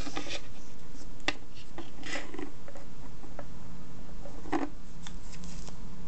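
A 2.5-inch laptop drive being handled on a wooden desk by rubber-gloved fingers: short scrapes and taps of its casing against the wood and glove, with a louder scrape about two seconds in and another about four and a half seconds in, over a steady low background hum.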